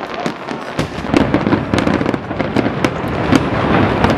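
Fireworks going off in quick succession: a dense run of bangs and crackles that thickens and grows louder about a second in.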